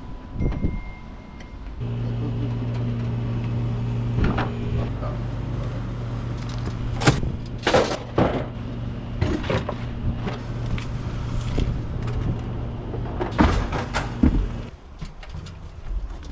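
A motor running with a steady hum, starting about two seconds in and cutting off near the end, with several sharp knocks and clanks over it.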